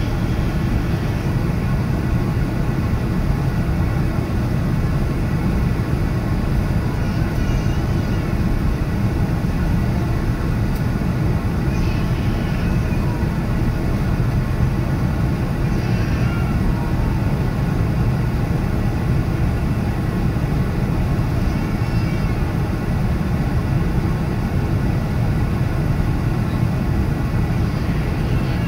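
Steady low rumble inside the cabin of a Boeing 787-9 taxiing, its engines at taxi idle, heard from a window seat beside the engine.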